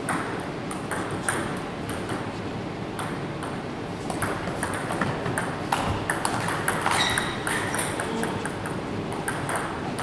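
Table tennis ball clicking off the rackets and the table in a rally, the clicks coming thickest about halfway through.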